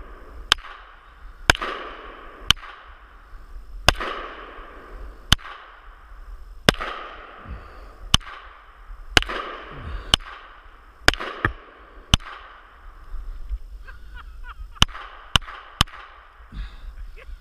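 Rapid, irregular gunfire from two pistols fired together, a Desert Eagle .50 AE and a Ruger SR22 .22: about fifteen sharp shots over some fifteen seconds, several of them followed by a long rolling echo. The shooting stops a little before the end.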